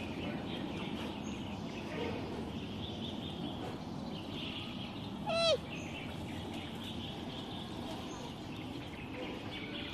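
Giant panda cub giving one short, high-pitched call that falls in pitch, about halfway through, over a steady background hiss.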